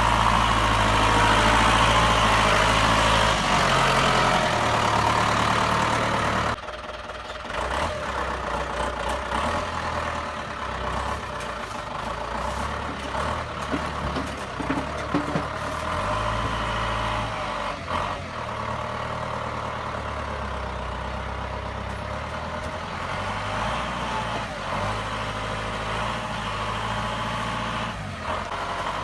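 New Holland 2120 tractor's diesel engine running under throttle, then dropping abruptly to a lower, quieter speed about six seconds in. It keeps running with the engine note shifting up and down, and a few faint knocks.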